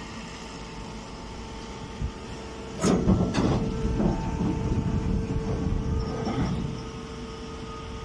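Hydraulic straw baler running with a steady hum. About three seconds in, a loud rustling, knocking clatter begins and lasts a few seconds as a straw bale and woven sack are handled at the outlet, then it eases back to the hum.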